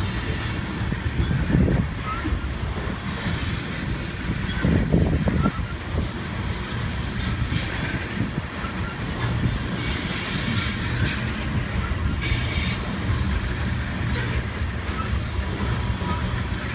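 Loaded railroad tank cars of a freight train rolling past close by, their steel wheels rumbling steadily on the rails. Heavier thuds come about 1.5 and 5 seconds in, and short bursts of higher-pitched wheel noise come now and then.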